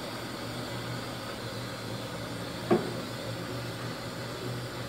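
A steady low hum with hiss, and one sharp click a little past halfway.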